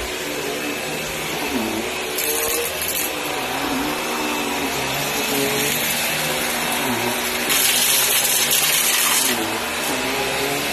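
Hoover Empower upright vacuum cleaner running, its motor pitch dipping and recovering every second or two. A louder hiss comes in briefly about two seconds in and again for nearly two seconds near the end.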